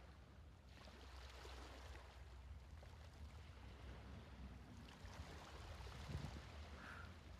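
Faint wash of ocean-wave sound that comes in about a second in, over a low steady hum.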